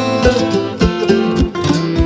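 Background music: plucked guitar over a steady beat.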